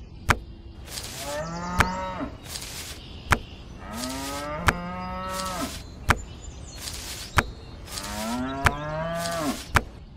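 Cattle mooing, several long moos one after another. Sharp clicks come at a steady pace, about one every second and a half.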